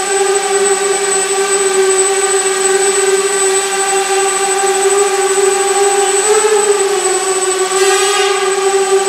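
Small quadcopter's electric motors and propellers whining steadily as it hovers and flies, the pitch rising briefly and then dipping about six to seven seconds in. A short hiss comes near the end.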